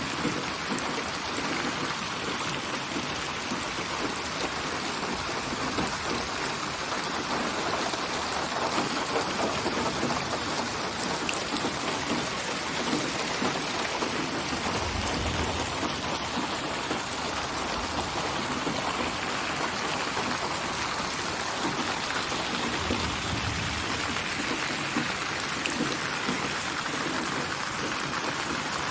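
Steady rain, an even hiss of drops, with two brief low rumbles about halfway through and again about two-thirds through.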